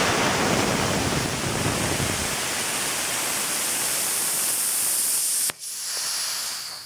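Air hissing out of a bicycle inner tube's Schrader valve as its centre pin is held down, deflating the tyre. The hiss breaks off briefly about five and a half seconds in, then comes back weaker and dies away.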